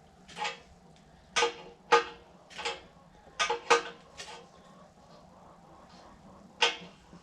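Metal hand tools clinking and knocking against the air compressor's metal parts, about eight sharp strikes spread irregularly, some ringing briefly, over a faint steady hum.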